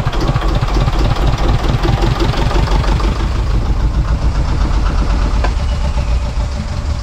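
Sailboat's small inboard diesel engine idling at minimum throttle just after starting, a steady low rumble. It is being run as a test of its newly converted raw-water (saltwater) cooling.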